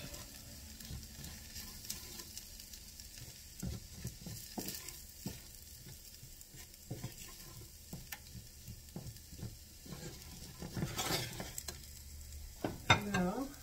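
Wooden spoon stirring an onion and sweet pepper mixture in a stainless steel skillet: irregular scrapes and light knocks of the spoon against the pan over a faint sizzle, with one louder knock near the end.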